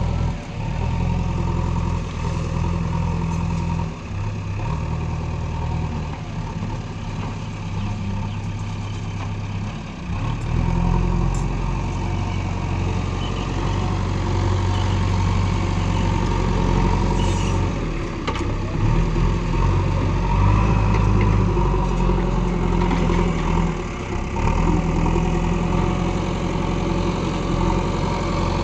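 JCB excavator's diesel engine running under working load while digging earth, its note dropping and picking up again every few seconds.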